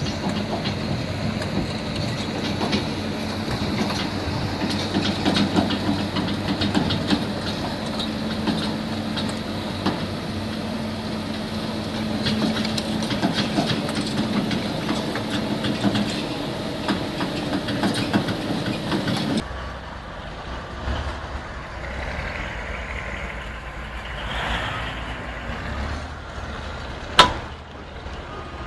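A heavy machine's diesel engine runs steadily with many metallic clanks and knocks. It cuts off suddenly about two-thirds of the way in, giving way to a quieter machine sound with one sharp crack near the end.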